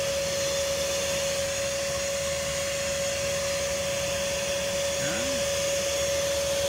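Oase PondoVac Classic pond vacuum running steadily with a constant whine as its nozzle sucks water and debris off the pond bottom.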